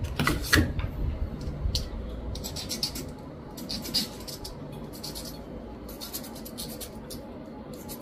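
Small tools clicking and scratching against an ECU circuit board during chip soldering work: short irregular scrapes and ticks in clusters, with a heavier knock and rustle about half a second in.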